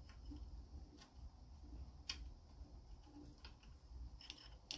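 Near silence with a few faint light clicks, a sharper one about two seconds in, from a motorcycle throttle cable end and its guide being fitted into the twist-throttle housing on the handlebar.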